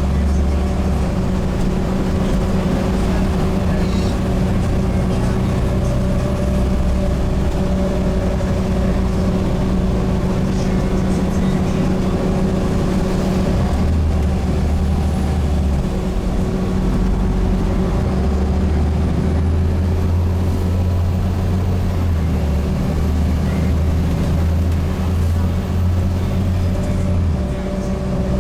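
Volvo B7TL double-decker bus heard from inside the passenger saloon, its diesel engine running steadily under way. Partway through, the automatic gearbox kicks down and the engine pulls harder, its low drone growing louder for several seconds before easing off near the end.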